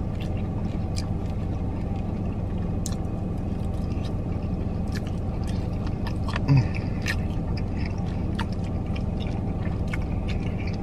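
Steady low hum of a car idling, heard from inside the cabin, under small clicks and smacks of eating with the fingers from a plastic bag. A brief low sound about six and a half seconds in is the loudest moment.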